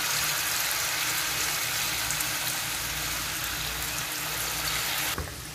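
Batter-coated potato pieces sizzling in hot frying oil, a steady dense hiss as more pieces are dropped into the pan; the sizzle cuts off abruptly near the end.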